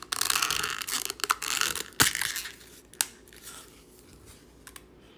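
Plastic packaging of a Scentsy wax bar crinkling as it is handled and opened, with a sharp click about two seconds in and another about three seconds in, then fading off.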